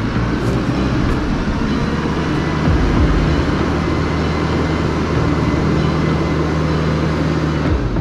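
Case IH 75C tractor's diesel engine running steadily as the tractor drives down the trailer ramps onto the road, with a couple of low thumps about three seconds in.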